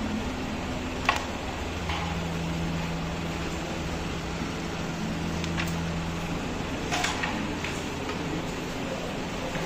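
Carrom play: sharp clicks of the striker hitting the wooden coins and board, the loudest about a second in and a few lighter ones later, over a steady hum.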